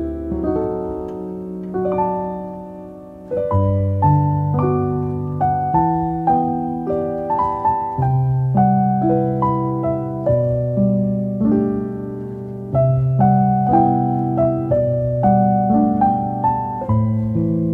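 Slow solo piano background music, with single notes and chords struck and left to ring over low bass notes.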